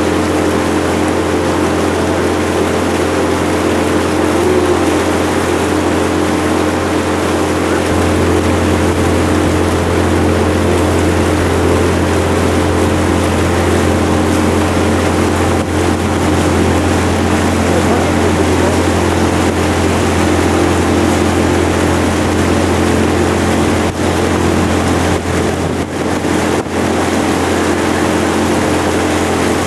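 Motorboat engine running steadily underway, heard from on board: a constant low drone under a steady rushing noise.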